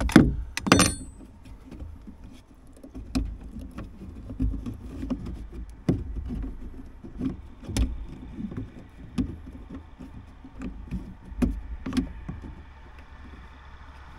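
Small metallic clicks and taps as fingers work a Scania truck's toolbox lid latch and its steel release cable. Two sharper clinks come in the first second, one ringing briefly, then single clicks about every second or so over a low steady rumble.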